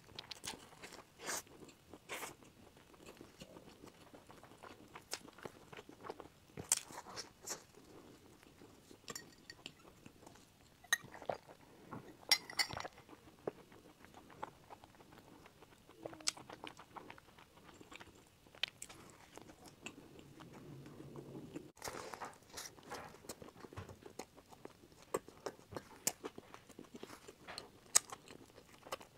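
Close-miked eating sounds of a person chewing and biting crusty bread: irregular crisp crunches and clicks with softer chewing between them.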